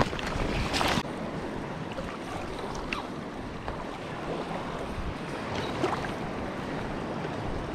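Ocean surf washing over a rocky shoreline, with wind on the microphone. Louder in the first second, then a steady wash with a few faint clicks.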